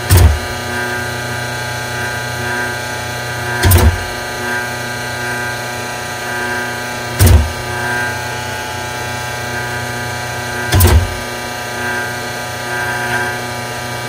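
Freshly rebuilt Spectra Newport 400 watermaker running: the feed pump's steady motor hum, with a heavy clunk about every three and a half seconds as the Clark pump reverses its stroke.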